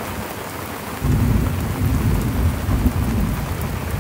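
Heavy tropical rain hissing down on and around a sailboat at anchor, with a low rumble of thunder that sets in suddenly about a second in and keeps going, loud.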